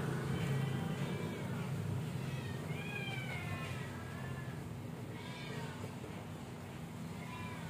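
A cat meowing repeatedly in short high-pitched calls, the loudest about three seconds in. A low steady hum runs underneath.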